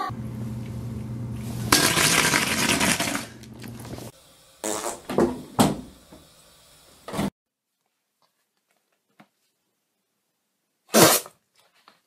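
A series of fart sounds: a long loud one about two seconds in, several short ones around five to seven seconds, and one short sharp one near the end, with dead silence before it.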